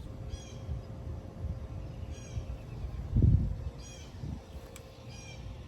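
A bird calling four times, short calls repeated every second and a half or so, over a low rumble, with one dull thump a little past halfway that is the loudest sound.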